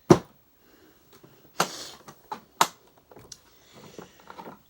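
Hard plastic clicks and knocks as the bag door panel of a Hoover upright vacuum is fitted back on: a sharp click at the start, a rattling knock about a second and a half in, and another sharp click a second later.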